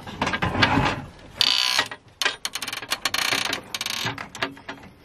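Cables being pulled and fed through a hole in a wooden cabinet: a run of rattling, scraping clicks, with two longer scraping bursts about a second and a half in and around three seconds.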